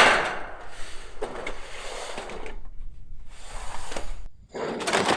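Sheets of used corrugated metal roofing scraping and rattling as they are dragged and stacked. The sound comes in rushes of hiss with a sharp start, broken by short pauses.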